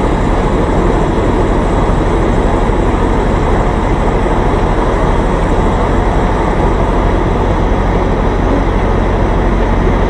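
Semi truck's diesel engine running steadily at low idle while the rig creeps in reverse at walking pace, a constant low hum under even noise with no changes.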